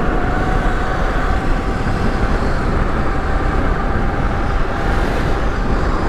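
Steady rush of wind and road noise from an electric bike at about 50 mph, with a faint steady electric motor whine above it.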